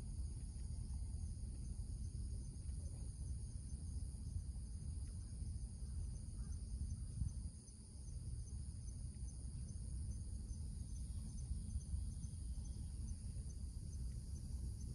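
Steady high-pitched insect chorus: a continuous buzz with a regular pulsing chirp in it, over a low steady outdoor rumble.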